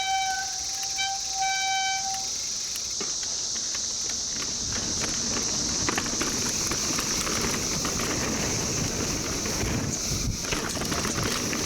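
Dense chorus of 17-year periodical cicadas, a steady high-pitched drone, over the crunch and rattle of a mountain bike rolling on a dirt trail. A squealing tone cuts in and out during the first two seconds.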